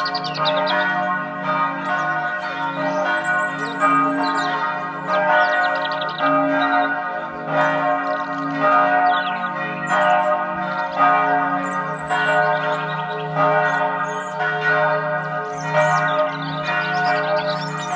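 Bells ringing in overlapping, sustained tones, with birds chirping over them.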